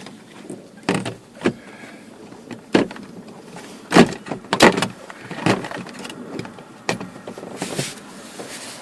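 Replacement speaker being test-fitted into the dash speaker opening of a 1999 Chevy S10: a series of irregular knocks and short scrapes as it is worked into place, the loudest a little past the middle.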